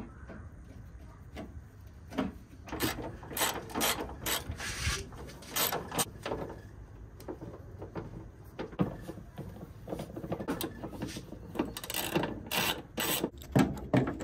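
Hand ratchet and spanner working bolts loose, clicking and scraping in short, irregular bursts.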